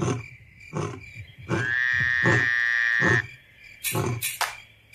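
Frogs and insects calling together: a steady high insect trill under loud calls repeating about every 0.8 s, with one long high held note in the middle.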